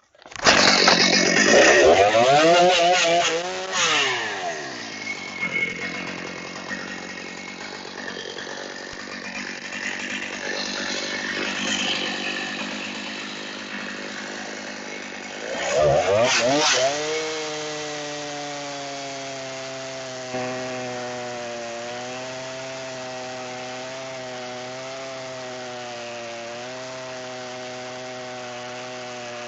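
Stihl MS290 two-stroke chainsaw on an Alaskan sawmill running loud: it comes in suddenly, revs up and down over the first few seconds, runs on unevenly, revs again around 16 seconds in, then settles into an even, steady running note.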